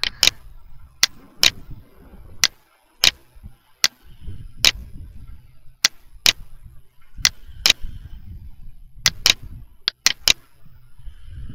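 Computer mouse clicking: sharp, irregular clicks about once or twice a second, some in quick pairs, over a low rumble.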